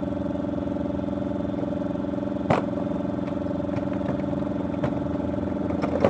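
An engine running steadily at an even pitch, with a single sharp knock about two and a half seconds in.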